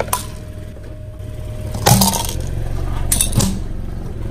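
Car engine idling with a low hum, with a click at the start and two sharp cracks about two and three and a half seconds in, as the car tyre breaks a plastic bead-filled shower head.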